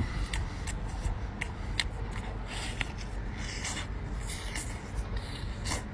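Eating noises: scattered sharp clicks and short crackly rustles as shellfish is pulled apart and chewed.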